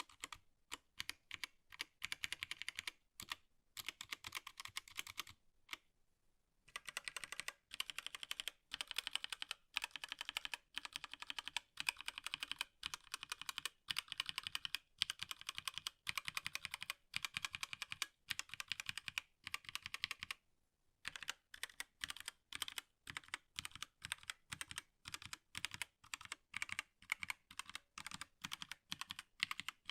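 Typing on a HyperX Alloy Origins Core TKL mechanical keyboard with HyperX Aqua switches: rapid, continuous key clacks, broken by two brief pauses, one about six seconds in and one about two-thirds of the way through.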